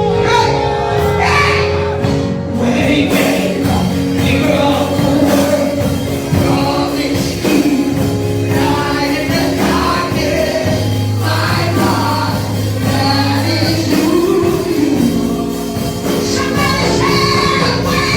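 Gospel worship song: voices singing over instrumental backing with long held bass notes.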